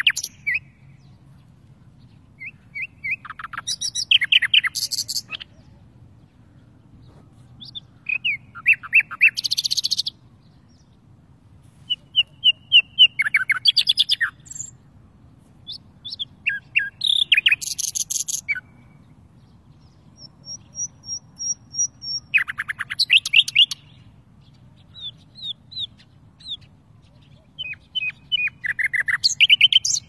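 Caged songbird singing: short phrases of rapid trills and twittering notes, one every few seconds, with a faint low hum underneath.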